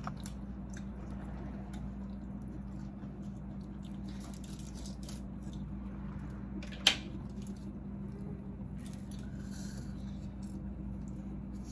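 Quiet eating sounds of cooked sea snails being handled and their meat picked out by hand: faint wet squishes and small clicks of shell, with one sharp click about seven seconds in. A steady low hum runs underneath.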